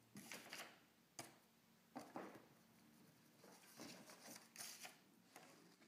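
Faint, irregular crackles and scratchy rustles, about a dozen scattered through, against near silence.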